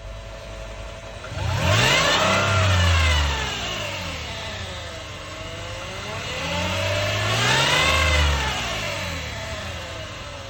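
2010 Lexus RX350's 3.5-litre V6 and transmission accelerating, rising and falling twice, with a high whine that climbs and drops in pitch with each rise. The owner takes the whine for a transmission fault of unknown cause.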